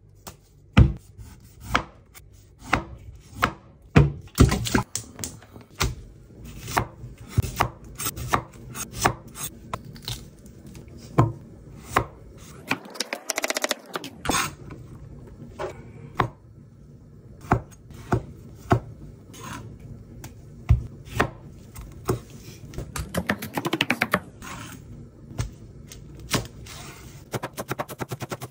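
Knife chopping vegetables on a cutting board in irregular strokes, with two stretches of quicker, denser chopping about halfway through and near the end.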